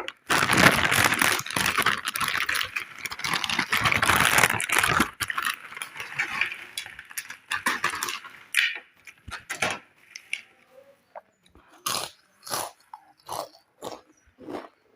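Close-miked crinkling and crunching of packaged chips: a dense, continuous crackle for the first five seconds or so, then separate crisp crunches of chewing, about two a second, in the second half.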